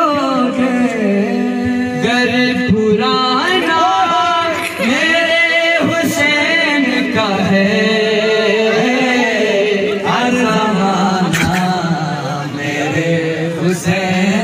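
A man singing a Sufi devotional kalam in Urdu in praise of Hussain into a microphone, a melodic vocal line with long drawn-out notes; a boy's voice on a second microphone joins in.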